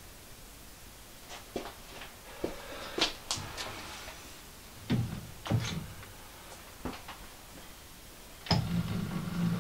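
Scattered sharp metal clicks and knocks from hand work on a metal lathe, as parts and tools are handled on the carriage. About a second before the end, a low mechanical rumble starts.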